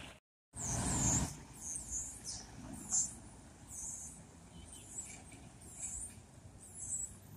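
Road traffic with a short loud rush of a passing vehicle about half a second in, then a low steady rumble of the street under a run of short, high-pitched chirps repeating roughly once a second.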